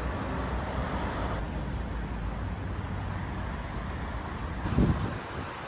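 Outdoor city ambience: a steady low hum of distant traffic. Near the end comes one brief, loud low thump, like a gust of wind hitting the microphone.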